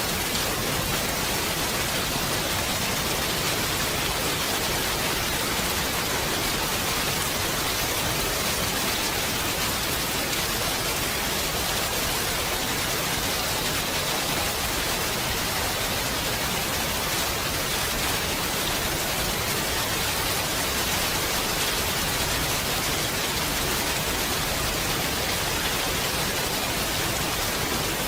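Rain falling steadily as an even, unbroken hiss, with no separate drops or pauses standing out.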